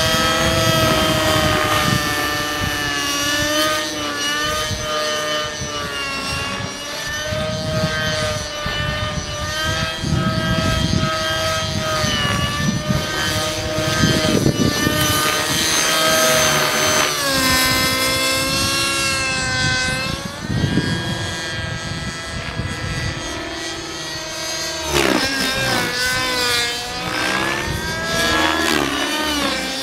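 Align T-Rex 600 Nitro radio-controlled helicopter in aerobatic flight: its two-stroke glow engine whines over a low rotor chop. The pitch swings up and down through the manoeuvres, with several sharp dips in the second half.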